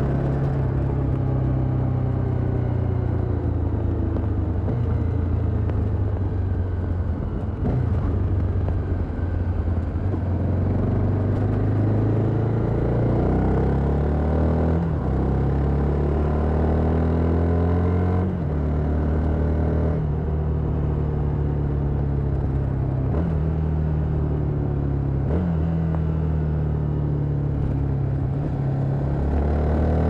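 Stock exhaust of a 2022 Honda XRE 300 Rally's single-cylinder four-stroke engine heard while riding, its note dropping and rising abruptly several times.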